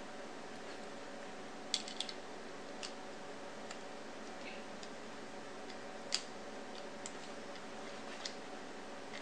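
Small metal parts of a limb-mounted bow clicker being handled and fitted back together with multitool pliers: scattered light clicks and taps, two close together about two seconds in and single ones later, over a faint steady hum.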